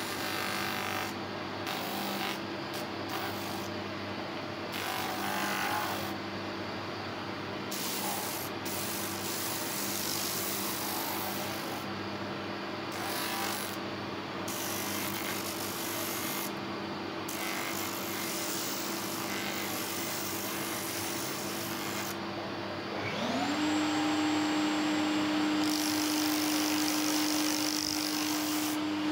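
Homemade plywood spindle sander running with a steady motor hum while a piece of wood is pressed against the spinning sanding drum, a rasping sanding sound coming and going with each pass. About 23 s in, a motor whine rises in pitch and holds steady, louder than before.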